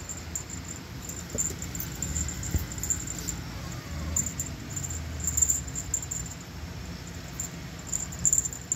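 Soft scuffling and rustling of a plush fleece blanket as a cat burrows and plays in it, with scattered small crackles and a low rumble of the phone being handled close by.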